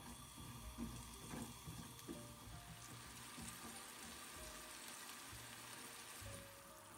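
Walnuts in a thin syrup of sugar, oil and water sizzling and bubbling in a non-stick pan. A spatula clicks and scrapes against the pan a few times in the first two seconds.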